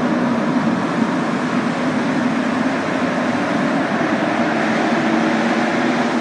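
Montreal Metro Azur train on rubber tyres, heard from inside the car: steady running noise of the train through the tunnel, with a low hum underneath.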